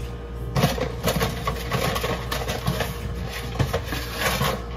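Dry lasagna noodles crackling and snapping as they are bent and broken by hand, in a dense run of small cracks lasting about four seconds. The noodles are not breaking cleanly. A steady low hum runs underneath.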